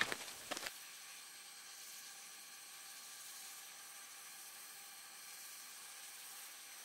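Drum-driven music cuts off within the first second, the last drum strokes trailing away. Only a faint steady hiss remains.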